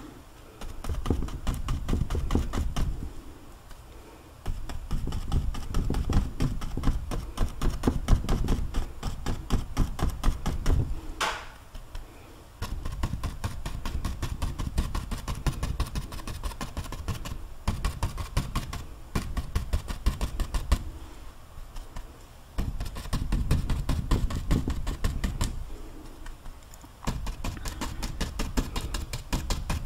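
Paintbrush tapping oil paint onto a canvas in long runs of rapid dabs, each with a soft thud, broken by brief pauses every few seconds.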